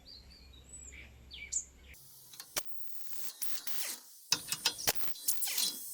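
Irregular sharp metallic clicks and clinks of hand tools working on metal motorcycle parts, coming thick about four seconds in. Faint bird chirps over a low hum in the first two seconds.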